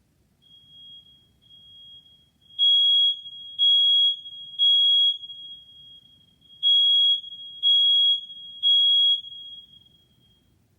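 Smoke alarm sounding during a test: six loud, high-pitched beeps in two groups of three, the temporal-three evacuation pattern. A fainter steady tone at the same pitch runs underneath from about half a second in and stops just before the end.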